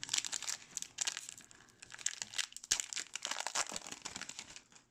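Foil wrapper of a hockey card pack crinkling and tearing as it is opened, in uneven bursts of crackle that stop shortly before the end.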